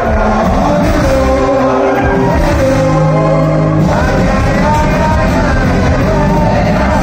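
Live amplified band music with a male singer, loud: electric bass, saxophone and trumpet under the vocal line.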